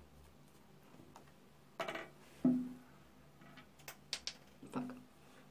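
A few faint clicks and soft rustles of hands handling a small plastic toothpaste tube, scattered through a quiet stretch.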